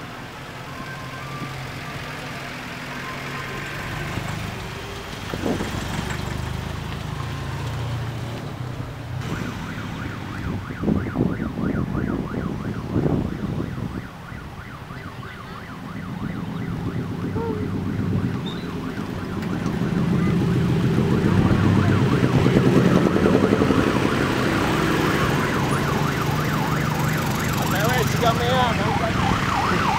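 Road traffic going by: a Suzuki APV van passes, then a steady stream of motor scooters runs close past with their engines going, getting louder after about twenty seconds. A warbling, siren-like tone sounds near the end.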